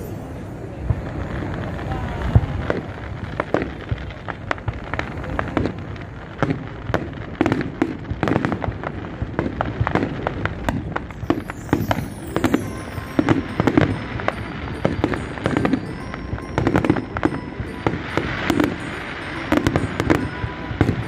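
Fireworks display: a rapid, continuous string of bangs and crackles, many per second.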